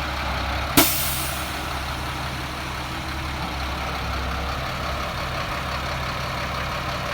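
Caterpillar 3126 diesel engine of a 2001 Freightliner FL80 idling steadily. Less than a second in there is a single sharp burst of hissing air that fades away quickly.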